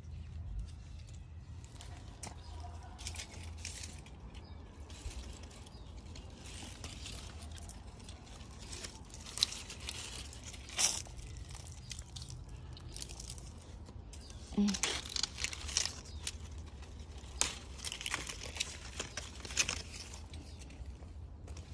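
Grapevine leaves and bunches of grapes rustling and crackling as they are handled and picked by hand, with scattered sharp snaps, more of them in the second half.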